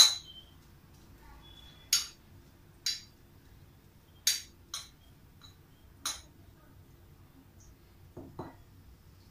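Metal spoon clinking against a glass bowl about six times, at uneven intervals, while breaking up fried-egg filling, with a softer knock near the end.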